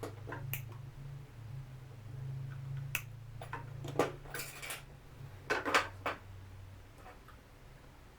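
Small metal hand tools clicking and tapping during fine electronics repair work, in irregular sharp ticks with a brief scraping rustle, the loudest cluster near the middle, over a low steady hum.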